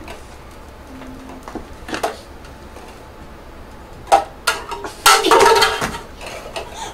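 Red plastic cups being stacked and unstacked by hand on a tray, scattered light knocks and clicks as cup meets cup, with a louder burst of sound about five seconds in.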